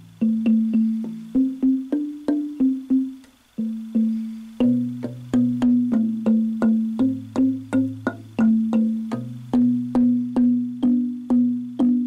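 A 12-key wooden tongue drum with a canary-wood top and kingwood box, tuned to a B minor Celtic scale, played with two mallets. It gives a quick run of low, woody, pitched notes at about three to four strikes a second, with a short pause about three and a half seconds in.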